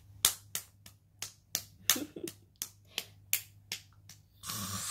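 Hands clapping in a steady rhythm, about three claps a second, as in a children's clapping chant. Near the end a short burst of hissing noise comes in.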